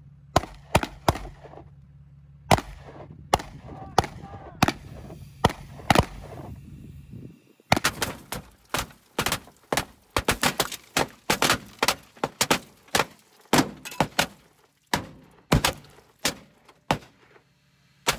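Pistol shots fired at a car: spaced single shots at first, then from about seven and a half seconds in a faster, denser string of shots, heard from inside the car as bullets punch through the windshield glass.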